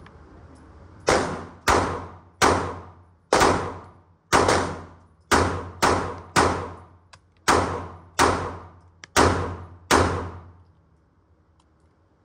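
A dozen handgun shots fired one at a time at an uneven pace of one to two a second, each followed by a short echo off the indoor range's walls. The last shot comes about ten seconds in.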